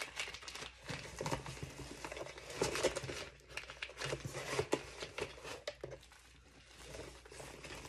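Packaging crinkling and rustling as a box's contents are unwrapped and handled, with scattered small clicks and knocks; it quietens about six seconds in.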